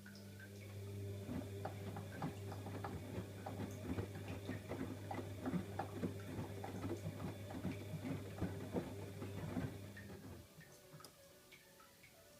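Bosch Logixx 7 washing machine drum turning during a wash: a steady motor hum with irregular clicking and knocking from the tumbling load. The motor stops about ten seconds in, the pause before the drum reverses.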